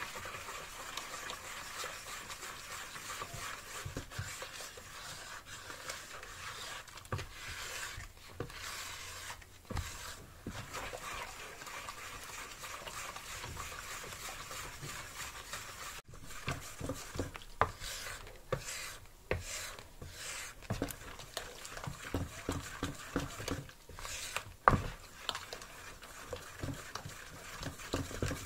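A wooden spatula stirring powdered laundry detergent into hot soapy water in a plastic bowl. A steady swishing runs through the first half. After a break about halfway in, it gives way to quick, irregular clicks and knocks.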